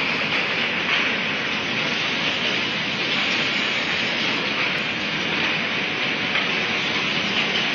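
Rigid box-making machine running: a steady, dense mechanical noise like a hiss, with no distinct rhythm.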